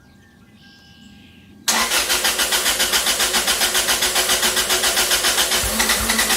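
Freshly rebuilt Toyota 1ZZ-FE 1.8-litre four-cylinder engine on its first start: faint ticking at first, then about a second and a half in the engine starts suddenly and runs loud with a fast, even pulse.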